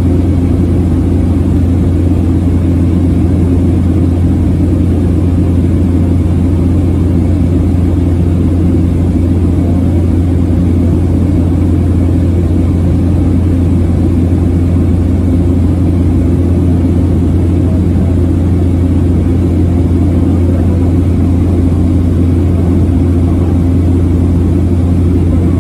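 Engine and propeller drone of a small high-wing aircraft, heard from inside the cabin during level flight: loud and steady, a deep hum with a few constant tones above it.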